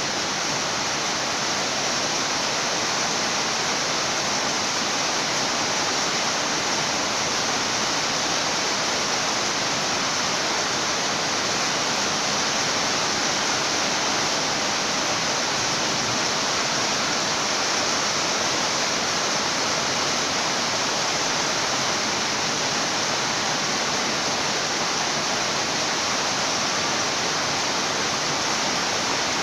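Steady rain, an even, unbroken hiss with no thunderclaps.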